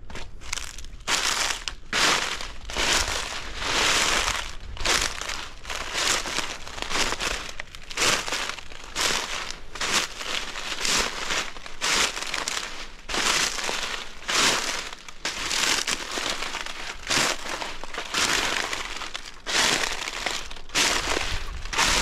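Footsteps crunching through a thick layer of dry fallen leaves at a steady walking pace, each step a crackling rustle, about one a second.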